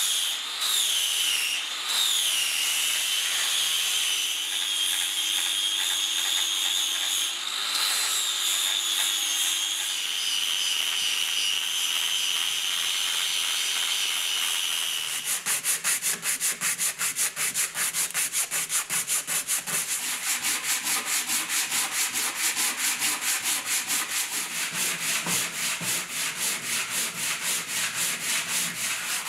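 An angle grinder with a sanding disc runs against a block of wood, its whine dipping and recovering as it bites. Just past the halfway point the grinder stops and hand sanding takes over: quick, even back-and-forth rasping strokes of a sanding block on wood.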